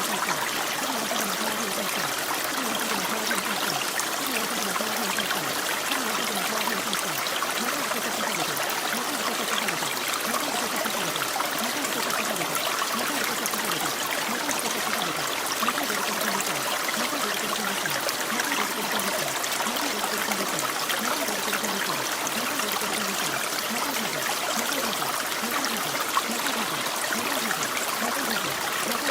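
Steady rain: an even hiss of falling water with a patter of small drops.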